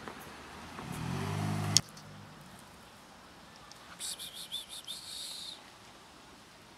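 A low hum swells for about a second and ends in a sharp click. A couple of seconds later a small bird gives a quick run of high chirps.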